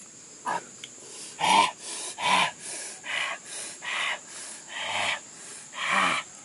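A man panting and gasping in loud, repeated breaths, some of them voiced like short grunts or moans, about one every second.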